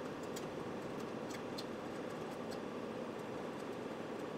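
Steady rushing background noise with a few faint clicks in the first couple of seconds as electrical cable is handled at a ceiling box.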